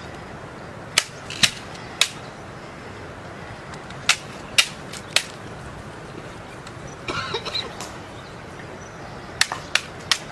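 Sharp metallic clicks from a rifle being handled, in three groups of three, each click about half a second apart. A short rattle comes a little past the middle.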